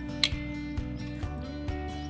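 Background music, with a sharp hit shortly after the start.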